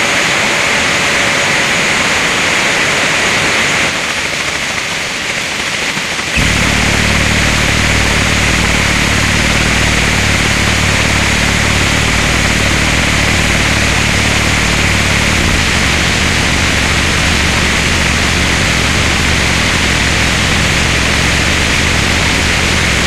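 Harsh noise music: a dense, loud wall of static hiss, joined suddenly about six seconds in by a heavy low buzzing rumble that then holds.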